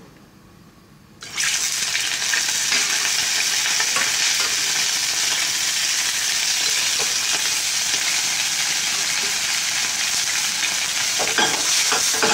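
Drained, freshly boiled potatoes sizzling in hot oil in a saucepan as they start to brown. The sizzle starts suddenly about a second in and stays steady, with a few light clicks near the end.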